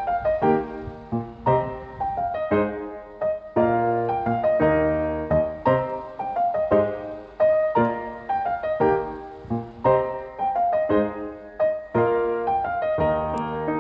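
Background piano music: a gentle melody of single struck notes and chords in an even rhythm.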